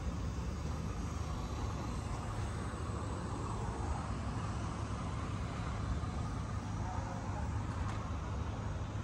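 Steady outdoor rumble with a hiss over it, from distant road traffic and the open air around a motorway fuel station.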